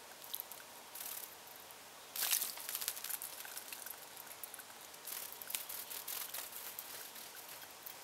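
California towhee bathing in a bird bath, splashing water with its wings in short bursts of fluttering. The biggest splash comes about two seconds in, and another run of splashes follows from about five to six and a half seconds.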